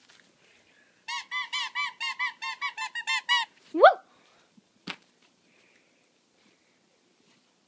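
Squeaky dog toy squeaked rapidly about a dozen times, roughly four or five squeaks a second, then one louder squeak that rises in pitch. A single sharp click follows about a second later.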